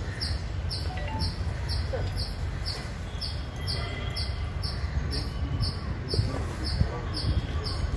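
Ambient noise: a steady low rumble with faint voices and a regular high-pitched pulsing about twice a second.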